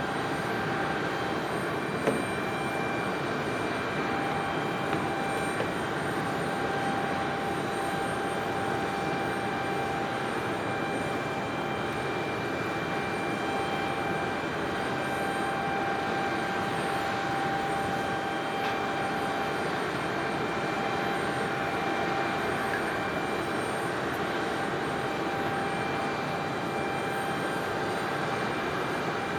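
Steady aircraft turbine whine on an airport apron: an even rushing noise with a constant high tone over it. There is a faint click about two seconds in.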